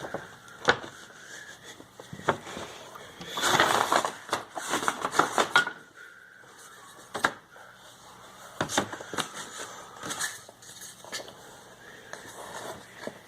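Hands handling leather shoe parts coated with tacky glue at a workbench as they are lined up and pressed together: scattered clicks and knocks, with a busy stretch of crackling and rattling about three to six seconds in and a few more knocks around nine to ten seconds.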